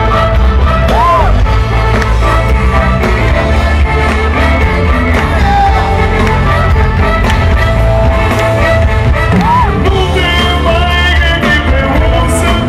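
Loud music with singing over a strong, steady bass.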